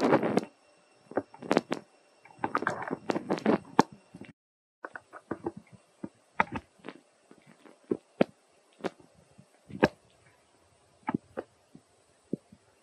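Dry leaf litter crackling and rustling as monkeys move about on it: a few dense bursts of crackling in the first four seconds, then scattered single crackles and clicks. A brief pitched monkey call ends just at the start.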